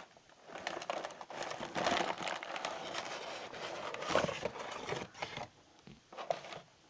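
Plastic air-cushion packing crinkling and rustling as it is handled, a dense crackle full of little clicks that dies away about a second before the end.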